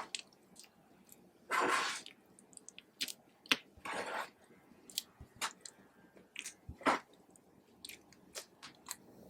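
Clear slime being squished and kneaded by hand: a string of sticky clicks and small pops, with two longer crackly squelches about two seconds in and again about four seconds in.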